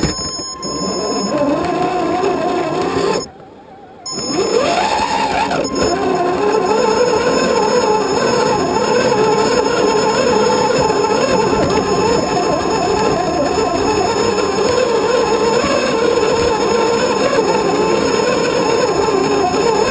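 The electric motor and gear drivetrain of a scale RC Land Rover Defender 90 crawler whining as it drives. It stops for a moment about three seconds in, then rises in pitch as it pulls away again and runs on with a wavering whine under load.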